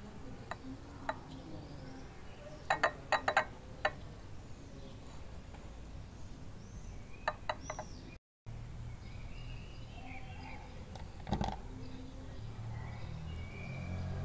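Light clicks and taps of fingers handling a small fibre seedling pot of soil on a ceramic plate: a quick run of several clicks about three seconds in and a stronger one later. Faint bird chirps sound in the background.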